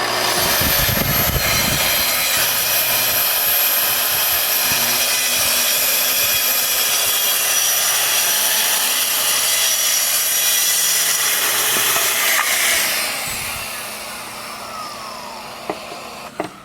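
Festool track saw cutting through plywood along its guide rail: the motor starts, runs steadily through the cut for about twelve seconds, then winds down with a falling whine. A few sharp clicks come near the end.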